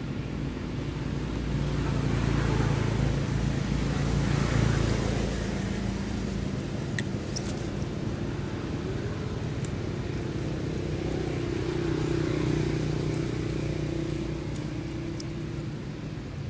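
Low, steady engine hum of a motor vehicle in the background, swelling louder twice as it draws closer.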